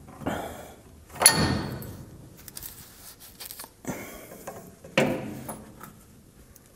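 Steel suspension parts clanking as a truck's front radius arm and bracket are worked into place with new bushings: a few sharp metal knocks. The loudest comes about a second in and rings briefly, and another comes about five seconds in.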